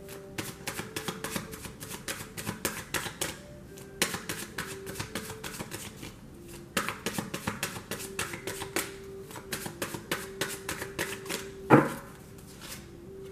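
A deck of tarot cards being shuffled by hand: quick runs of crisp flicking clicks that start and pause in bursts, with one louder snap near the end.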